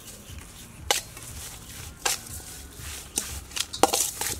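Metal spoon clinking and scraping against a stainless steel bowl while stirring minced pork with glass noodles and seasoning, in irregular strokes that come closer together near the end.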